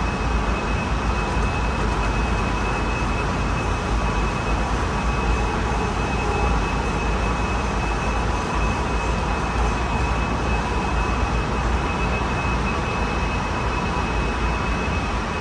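Interior running noise of a Honolulu Skyline metro train in motion: a steady rumble of the car rolling along the guideway, with a steady high tone running through it.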